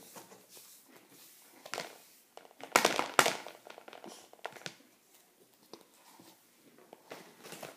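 A spoon knocking and scraping against a plastic frosting tub and bowl while scooping frosting out: scattered clicks and taps, the loudest pair about three seconds in.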